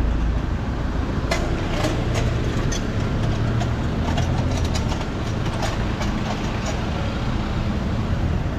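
Steady street traffic rumble with a run of short metallic clicks and clanks as a steel wheel clamp is fitted onto a car's front wheel.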